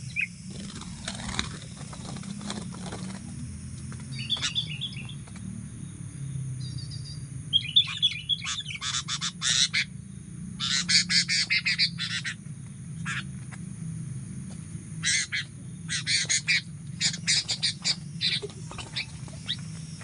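Junglefowl roosters fighting: bursts of rapid wing flapping and scuffling, heaviest around the middle and again near the end, with a few short bird chirps earlier on.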